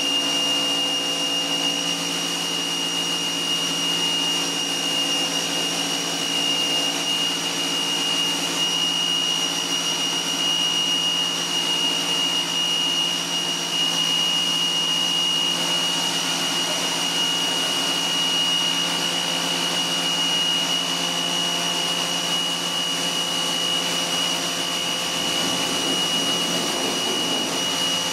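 Pressure washer running steadily: a high, unchanging motor-and-pump whine over the hiss of the water jet spraying onto car paintwork.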